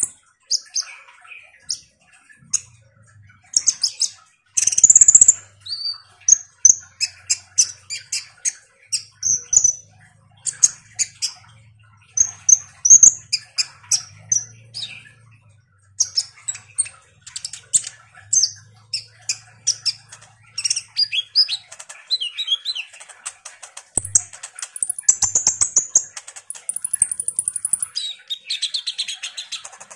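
Male copper-throated sunbird (kolibri ninja) singing steadily: a fast, continuous run of sharp, high chirps and twitters, ending in a high buzzing trill over the last few seconds.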